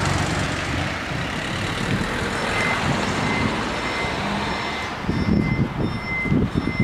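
Level crossing warning bells start ringing about two and a half seconds in, a steady high electronic ding that becomes a pulsing ring as the red lights begin to flash, signalling that the barriers are about to come down for an approaching train. Road-vehicle noise fills the first five seconds.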